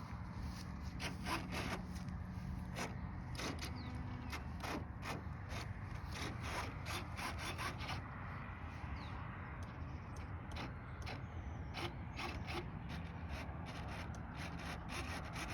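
Irregular light clicks, ticks and rubbing of things being handled, over a low steady hum.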